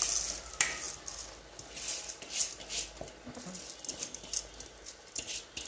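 Rice grains poured from a steel dish into a metal cooking pot, pattering down in a series of short rushes as a hand pushes the last grains off the dish.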